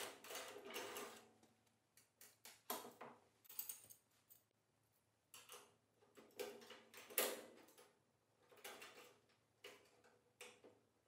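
Faint, irregular clicks and short metallic rattles from a socket ratchet working a hinge nut and bolt loose on a steel nest box.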